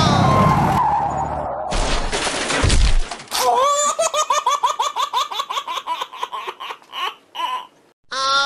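A noisy crash lasting about three seconds, then a high-pitched giggling laugh added as a sound effect: a fast run of short 'ha' pulses lasting about four seconds.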